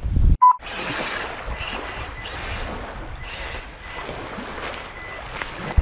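Small waves washing onto a pebbly sand beach, swelling and easing about once a second, with wind on the microphone. A short electronic beep sounds about half a second in, just after a brief dropout.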